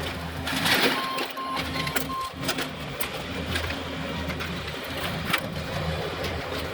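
Loader with a grab bucket running steadily, a low engine hum, with scattered knocks and four quick beeps about a second in.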